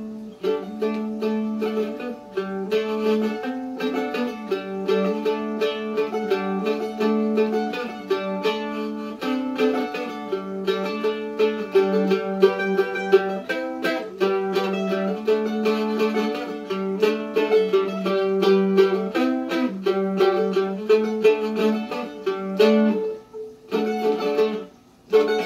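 An A-style mandolin played solo: a picked melody of quick single notes.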